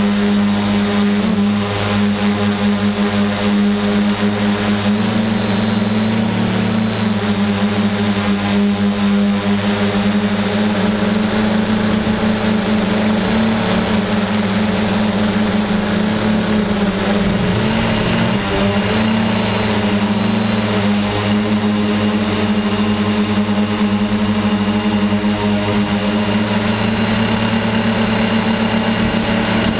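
Multirotor drone's motors and propellers humming steadily, heard from its onboard camera; the pitch wavers briefly a little past the middle as it manoeuvres.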